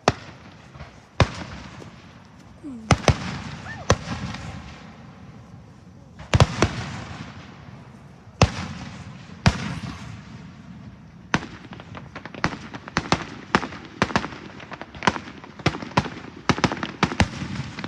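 Fireworks display bursting overhead: sharp booms a second or two apart, then coming fast, several a second, over the last six seconds or so.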